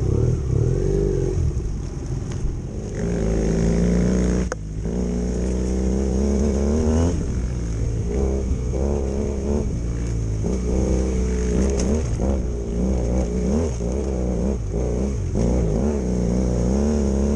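BMW F 800 GS parallel-twin engine revving up and down under throttle while the motorcycle is ridden off-road. The throttle shuts off abruptly about four and a half seconds in, then opens again and keeps rising and falling.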